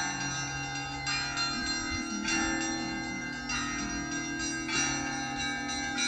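Russian Orthodox cathedral bells ringing in a peal. A cluster of higher bells is struck together about every second and a quarter, over the long hum of larger bells, and all the tones ring on and overlap.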